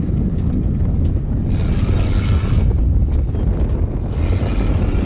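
Wind buffeting the microphone in a heavy, steady rumble, with two separate bursts of hiss about a second long, one about a second and a half in and one about four seconds in.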